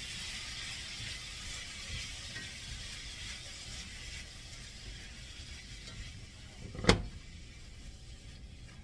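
Frozen peas, carrots, celery and onion sizzling in olive oil in a cast iron skillet as they are stirred, the sizzle slowly fading. A single sharp knock about seven seconds in.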